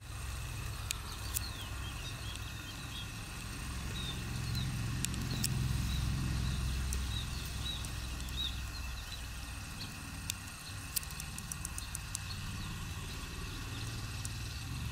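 Outdoor ambience: a steady low rumble with faint, scattered high chirps and a few sharp clicks.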